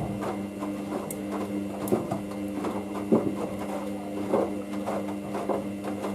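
Hoover DYN9144D3X washing machine running a wash cycle: a steady motor hum, with irregular soft thuds and swishes as the load of towels tumbles in the drum.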